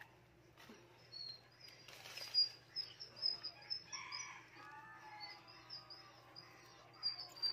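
Small birds chirping, many short high notes repeated through the whole stretch, with soft scraping and crunching of a hand pressing loose potting soil into a plastic pot, loudest about two seconds in.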